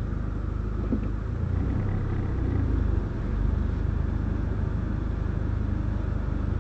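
A car running with a steady low rumble, no separate knocks or squeals standing out.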